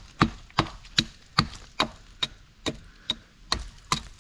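Axe chopping into a dead branch in quick, even strokes, about ten sharp chops at roughly two and a half a second.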